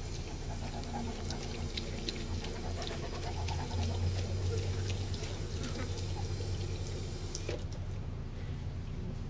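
Water running from a Pawcett Doggie Fountain, a paw-operated dog waterer on a garden hose, as a Saint Bernard drinks from the stream, over a steady low rumble.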